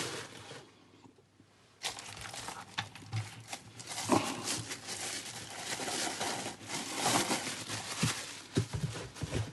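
Plastic packaging crinkling and rustling as it is handled and pulled off, with small clicks and knocks; it starts about two seconds in, after a short quiet spell.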